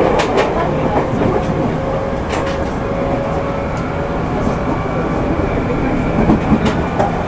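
JR 205 series 600-subseries electric train running between stations, heard from inside the passenger car. A steady rumble of wheels on rail carries a faint tone that slowly rises in pitch, with a few short clicks.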